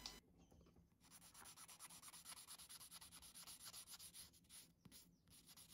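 Faint, quick rubbing strokes, several a second for about four seconds: a small soft resin brake part being cleaned up by hand.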